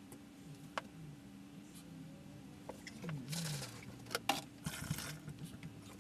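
A few sharp clicks and knocks of equipment being handled, with two short rustling noises in the middle, over a steady low hum.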